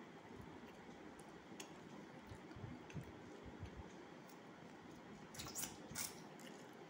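Faint, soft squishing and light clicks of fingers gathering cooked rice on a steel plate, with a couple of sharper clicks about five and a half seconds in.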